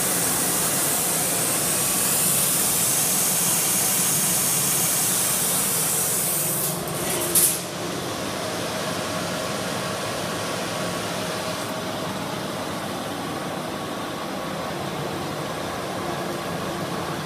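Hypertherm Powermax plasma cutting system running: a steady hiss of air that breaks off about seven seconds in with a short, louder burst, after which a quieter, steady hum of the running unit continues.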